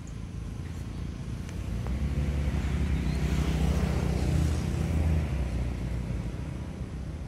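A motor vehicle's engine passing by: it grows louder about two seconds in, is loudest around the middle, then fades away.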